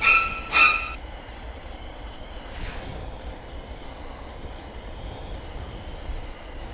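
Handheld butane gas torch squealing twice in short, steady high-pitched pulses in the first second, then a steady low hiss. The torch is faulty and due to be thrown away.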